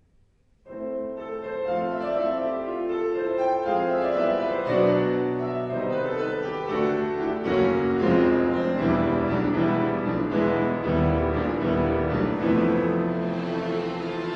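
Piano quintet (piano, two violins, viola and cello) playing classical chamber music. After a brief silence the ensemble enters suddenly and loudly less than a second in, with the piano prominent, and the notes carry on.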